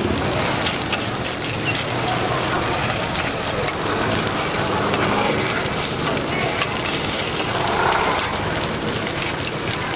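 Hot oil sizzling and crackling steadily as street food fries, with voices in the background.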